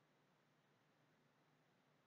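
Near silence: a faint, steady hiss and nothing else, from a recording without usable sound because the microphone was broken.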